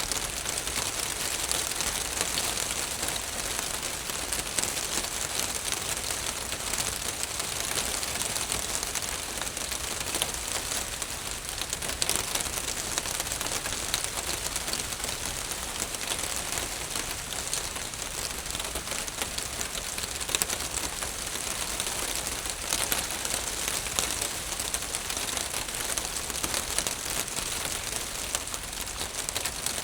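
Steady rain drumming on a roof, a dense even hiss of many small drop impacts.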